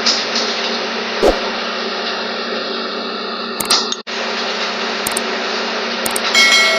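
Steady machine hum and noise, with a few sharp clicks and a brief cut-out in the middle, and a short electronic tone starting near the end.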